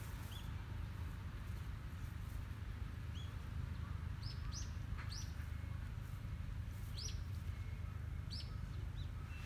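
Small birds chirping: short, high notes that each slide downward, heard about eight times at irregular intervals over a steady low background rumble.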